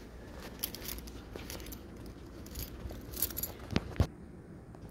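Light metallic jingling and scattered clicks while someone walks, with two sharp clicks about four seconds in.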